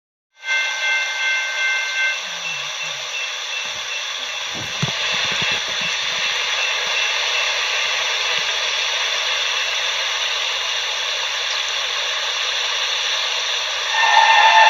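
A steady hiss, then near the end a diesel locomotive's air horn starts to blow, a chord of several steady notes.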